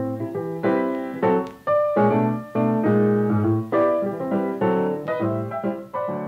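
Background piano music: chords and melody notes struck about two or three times a second, each fading away.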